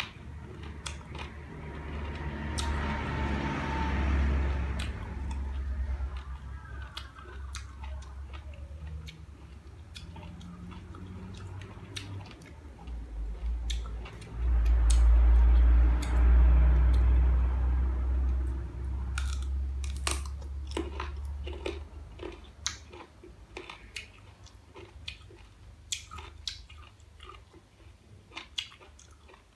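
Close-up chewing and biting of crisp green mango slices: a deep, muffled rumble of chewing that swells twice and is loudest about halfway through, with many sharp crunchy clicks, more of them near the end.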